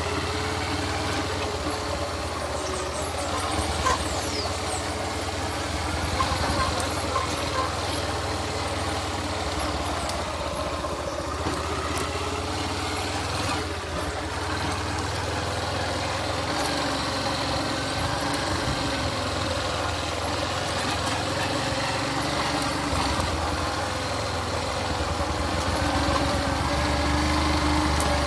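A motor vehicle's engine running steadily, with a continuous low drone.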